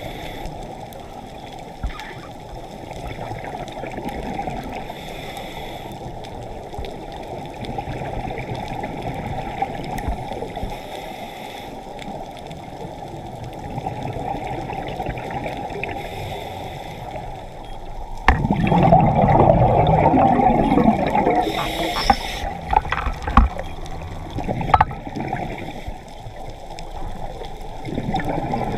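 Muffled underwater water noise heard through a camera housing. About two-thirds of the way through comes a louder stretch of gurgling bubbles lasting several seconds, the sound of a scuba diver's exhaled bubbles.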